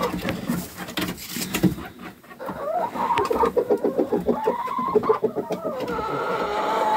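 Chickens clucking and calling. A quick run of clucks comes in the middle, and drawn-out calls come near the end.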